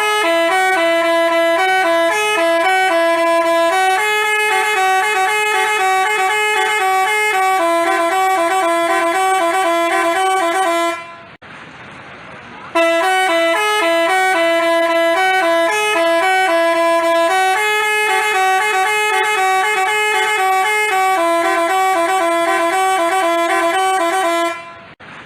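Multi-tone 'telolet' bus horn (basuri type) playing a quick jingle-like melody of switching horn notes, in two long phrases with a brief pause of about a second and a half between them.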